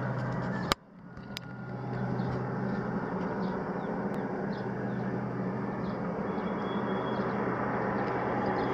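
Steady drone of a small turboprop plane on final approach, slowly growing louder as it nears. A sharp click comes under a second in, after which the sound briefly drops away and builds back up.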